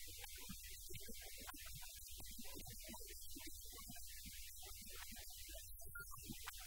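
Steady low hum under a background hiss, with faint, indistinct short sounds scattered over it.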